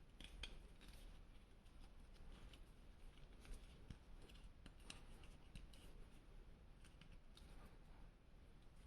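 Faint, irregular small clicks and rustles of toy packaging being handled as action figures are unboxed.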